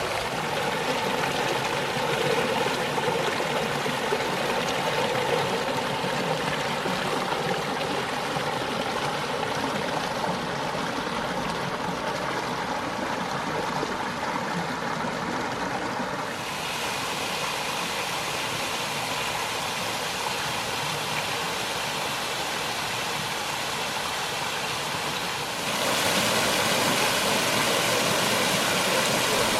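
Creek water running and splashing in a steady, even rush. The sound shifts suddenly about halfway through and again a few seconds before the end, where it grows louder.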